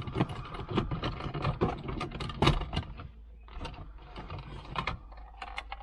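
Plastic center-console trim panel of a 2009 Toyota Corolla being pulled up around the shifter: rapid crackling and clicking of the plastic and its clips as they let go, with one sharper snap about two and a half seconds in.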